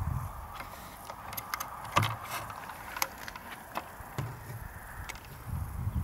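Scattered plastic clicks and light knocks from a car's centre dashboard air-vent trim panel being handled, the loudest about two seconds in, over a low rumble.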